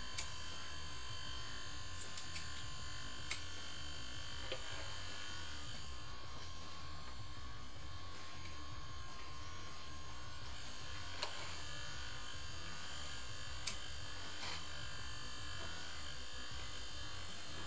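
Small electric pump on an electrolysis rig buzzing steadily, with a few faint clicks.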